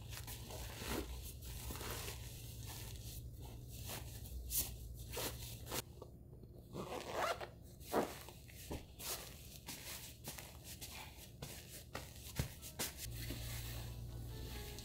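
Fabric rustling and brushing as a soft cushion insert is pushed into a cotton cushion cover and worked into place: a run of short, irregular rustles and scrunches.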